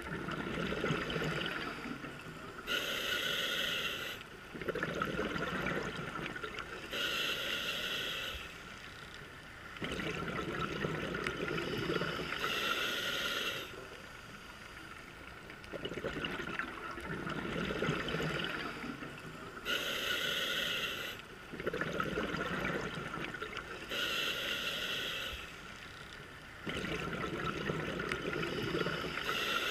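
Scuba diver breathing through a regulator underwater: about six short hissing inhalations, each followed by a longer, bubbling exhalation, with a quieter pause about halfway through.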